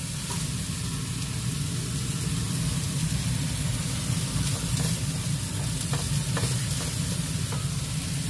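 Chopped chilies, shallots, garlic and spring onions sizzling in hot oil in a wok, stirred with a wooden spatula that taps the pan a few times, over a steady low hum.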